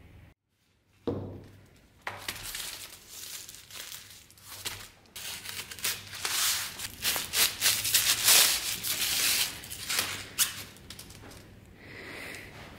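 White paper wrapping crinkling and rustling in irregular bursts as it is unwound from a sword blade. A single knock comes about a second in, and the rustling starts a second later.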